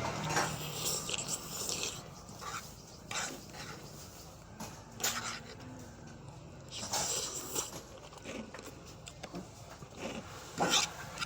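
A person eating noodles close to the microphone: irregular wet chewing smacks and a few longer slurps.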